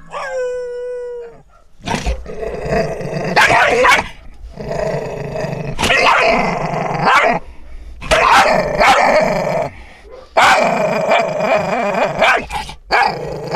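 Shiba Inu growling and snarling through the bars of a wire crate, in repeated bouts of about two seconds each, with barks mixed in: an aggressive warning from a dog known for biting.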